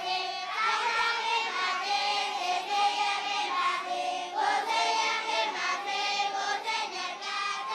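A large group of children singing together in unison, their voices holding and stepping between notes.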